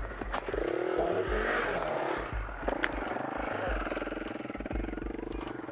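KTM enduro dirt bike's engine revving as the bike works up out of a muddy rut: the pitch rises and falls unevenly, then holds steadier at a high rev for the second half. Scattered knocks and bumps come with it.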